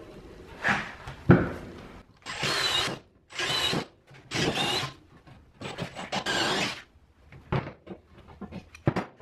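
Cordless drill boring bolt holes through a new wooden wheelbarrow handle in four short bursts, its motor whining under load. Before the drilling there are a couple of knocks, and after it light clicks of handling.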